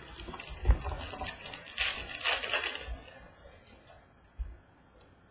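Rustling and crinkling as a trading-card pack's wrapper and cards are handled, loudest about two to three seconds in, with a light knock near the end.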